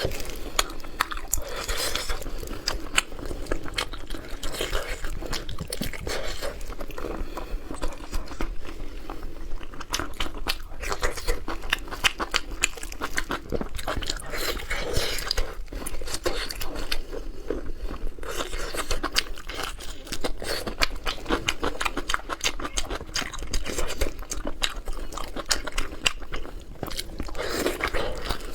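A person chewing and biting steamed pork skin rolls close to the microphone: a dense stream of small clicks and crunches.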